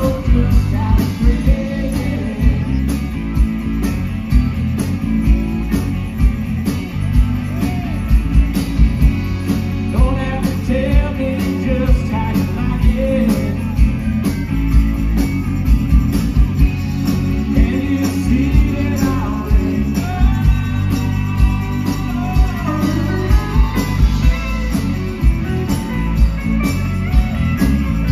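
Live country-rock band playing through a loud PA: a steady drumbeat, electric guitar and keyboard, heavy on the low end, with a woman singing lead.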